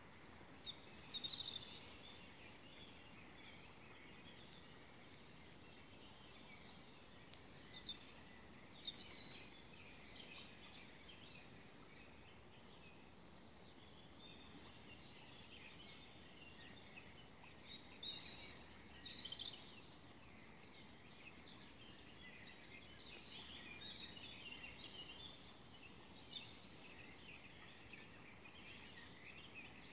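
Morning birdsong: several small birds chirping and trilling, a few calls louder about a second in, around eight to nine seconds and near twenty seconds, over a faint steady background hiss.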